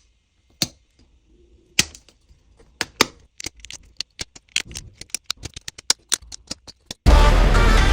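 A series of sharp clicks and clacks, a few spaced ones at first and then a rapid, irregular run. Loud electronic music cuts in suddenly near the end.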